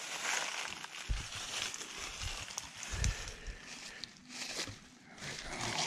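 Rustling and crackling through grass and brush as someone moves along the bank to the water's edge, with two dull thumps about one and three seconds in.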